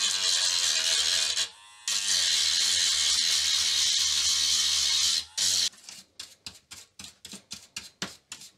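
Dremel rotary tool running against a circuit board, grinding the green solder mask off the copper contacts, with a brief stop about a second and a half in. It stops after about five seconds and is followed by quick scratching strokes, about five a second, of a small hand tool scraping the board.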